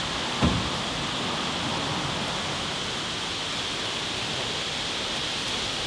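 Steady outdoor background hiss with a band of higher-pitched noise running through it, and two short knocks right at the start, the second, about half a second in, the loudest.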